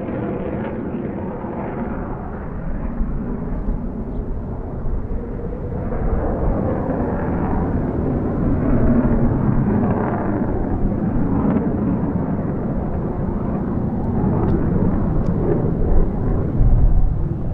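F-35B Lightning II's single F135 jet engine: a steady, noisy rumble that grows gradually louder as the jet comes closer.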